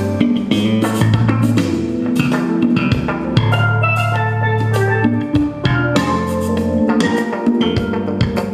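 Music played from a phone through an ATV TD9 power amplifier into a pair of PA speaker cabinets, with drums and deep bass notes.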